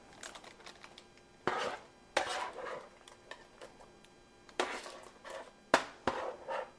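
Metal tongs clinking against a Dutch oven and baking tray while roasted tomato halves drop into tomato broth with wet plops. About five separate clatters and splashes.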